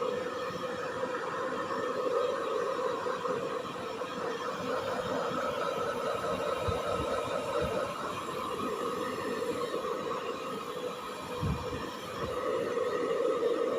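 Electric hair dryer running steadily, a constant motor whine over rushing air.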